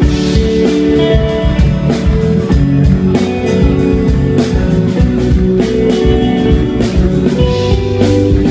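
Live band playing a pop song, with strummed guitars over a drum beat.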